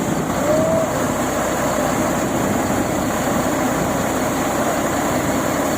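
Rice combine harvester running steadily while its unloading auger empties the grain hopper.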